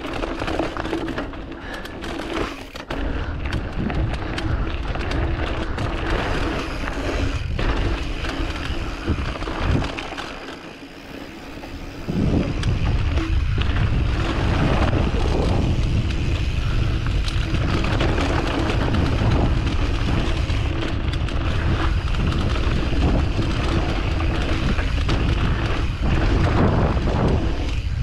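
Mountain bike riding down a dirt trail, heard from a camera mounted on the rider or bike: tyres rolling over dirt with the frame and chain rattling over bumps, and wind on the microphone. It quietens briefly about ten seconds in, then runs louder with heavier wind noise from about twelve seconds on.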